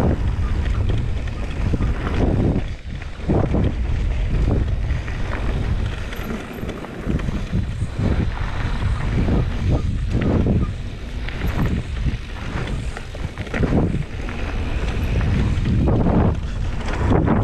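Wind rushing over the camera microphone as a Canyon Spectral 29 mountain bike rides fast along a dirt trail. Underneath are tyre rumble and irregular jolts and rattles from bumps.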